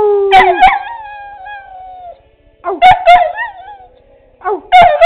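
Bedlington terrier howling in a high voice: sharp yelping starts that slide down into long falling howls, in three bouts with short pauses between.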